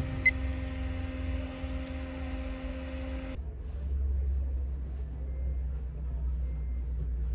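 Small electric cooling fans humming steadily, with a single click shortly after the start; the hum stops abruptly about three seconds in, leaving a low rumble.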